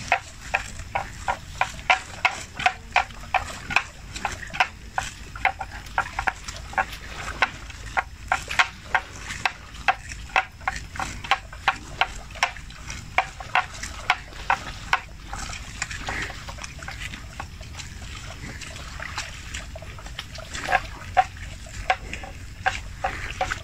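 Water buffalo grazing: rhythmic crunching as grass is torn and chewed, about two or three crunches a second, easing off for several seconds past the middle and then picking up again.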